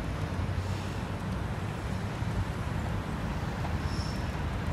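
Steady rumble of road traffic passing on a busy multi-lane road.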